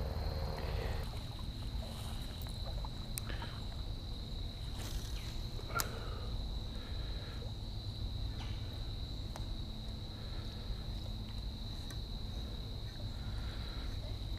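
Steady, high-pitched trill of a cricket holding one pitch, over a low rumble, with a few faint clicks near the middle from handling a spinning rod and reel.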